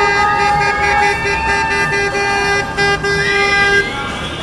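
Boat horn sounding in a run of short blasts, about two a second, with short rising whistles over it; the blasts stop just before the end.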